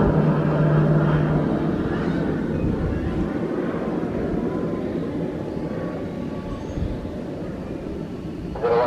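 Aircraft engine noise, a broad rumble that steadily fades away, with a steady low hum that stops about a second and a half in.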